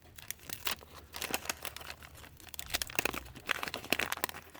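Crinkling and tearing of a 1986 O-Pee-Chee baseball card pack's wrapper as it is torn open by hand, a dense run of irregular crackles.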